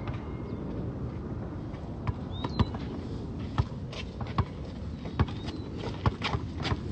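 A basketball bouncing and players' footsteps on an outdoor asphalt court: sharp, irregular knocks roughly once a second from about two seconds in, over a steady low outdoor rumble.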